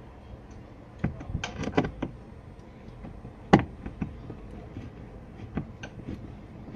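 Scattered metallic clicks and knocks, loudest about three and a half seconds in, from a long screwdriver working loose the screws that hold a washing machine's pulsator shaft.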